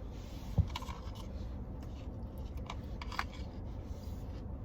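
Light handling noise close to the microphone: a short thump about half a second in, then a few small clicks and rustles, over a steady low rumble inside the car.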